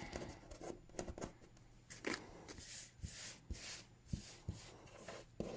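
Sheets of stickers being handled and sorted: faint, scattered paper rustling with light taps.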